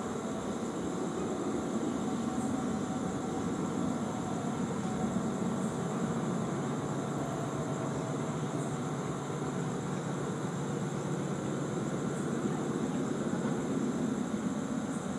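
Diesel locomotive of an approaching train running with a steady low engine rumble, with a faint high steady whine above it.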